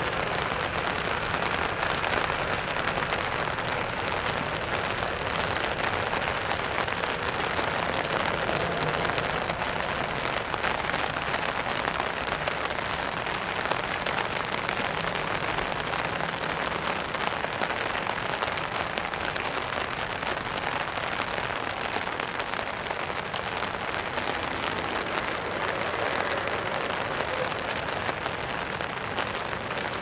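Steady rain hiss with fine pattering of drops, unchanging throughout.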